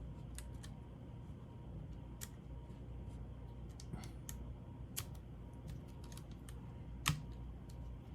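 Scattered small clicks and taps of plastic laptop parts and connectors being handled and fitted during reassembly, with one sharper click about seven seconds in, over a low steady hum.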